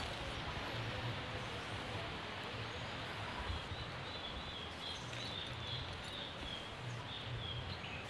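Forest ambience: a steady outdoor hiss, with a series of short, high chirps repeating from about halfway through.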